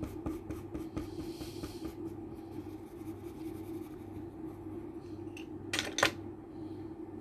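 Coloured pencil scratching on drawing paper in quick short strokes that thin out after the first couple of seconds, over a steady low hum. Near the end come two sharp clicks close together, the loudest sounds.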